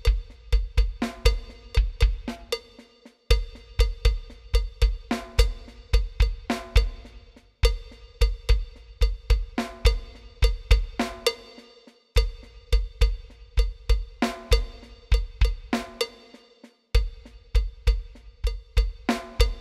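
Roland TD-20 electronic drum kit playing a fusion groove. The kick drum doubles the right hand's figure, and the left hand plays snare with ghost notes. The pattern repeats in phrases, with a short dip about every four and a half seconds.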